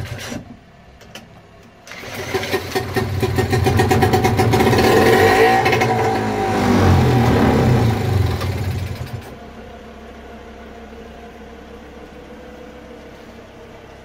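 British Seagull Forty Plus single-cylinder two-stroke outboard, newly fitted with a Wipac coil, firing and running fast for about seven seconds, its pitch rising and then falling. At about nine seconds in it drops to a quieter steady run. There is a short burst of sound right at the start.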